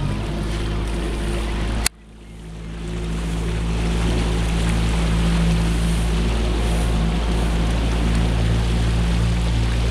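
Motorboat engine running at a steady speed, with low wind rumble on the microphone. About two seconds in a sharp click cuts the sound out briefly, then it builds back up and stays steady.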